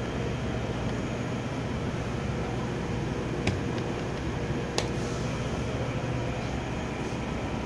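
Steady hum of a powered-up Bridgeport Romi EZ-PATH SD CNC lathe, with two sharp clicks about three and a half and five seconds in.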